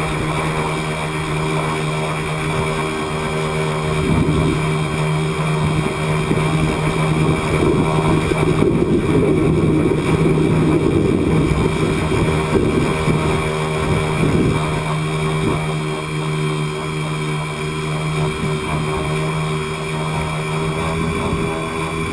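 Tricopter's electric motors and propellers running at a steady pitch while it hovers, with wind buffeting the microphone from about four seconds in until about sixteen seconds.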